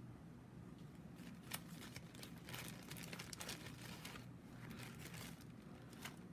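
Faint rustling and crinkling as paper and a piece of craft foam are handled, with scattered light clicks and one sharper tap about one and a half seconds in.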